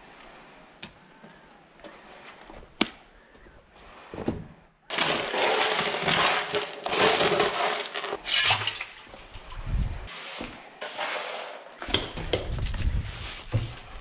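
A steel shovel scraping and scooping wet concrete across a plywood board, starting abruptly about five seconds in, with scattered knocks and handling clatter.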